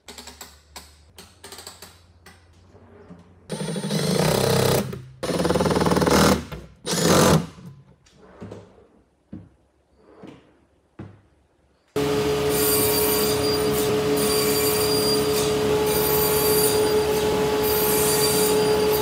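Light knocks and clicks as a pine drawer front is fitted, then a drawer slides in and out on metal ball-bearing slides in several loud strokes. About twelve seconds in, a SawStop table saw starts abruptly and runs with a steady hum.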